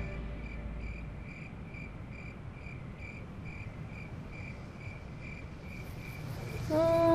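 A cricket chirping steadily, short high-pitched chirps at about two a second, which stop shortly before the end.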